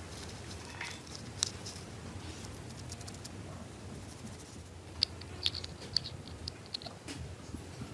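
Toothbrush bristles scrubbing the metal can of a small brushed DC motor, a soft scratching. Several sharp little metallic clicks come near the middle and later as the armature is fitted back into the motor can.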